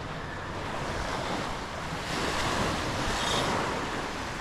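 Small waves breaking and washing up a sandy beach, with wind buffeting the microphone; the surf swells a little about two seconds in.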